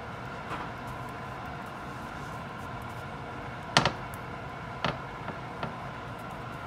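A steady kitchen hum, broken by a few light taps and knocks as a hand presses rolled-out dough down flat on a dry griddle pan. The loudest is a double tap a little under four seconds in, followed by three smaller ones.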